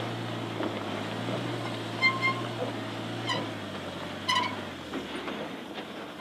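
Vehicle engine running at a steady low drone that drops lower about five seconds in, with a few short high-pitched chirps over it.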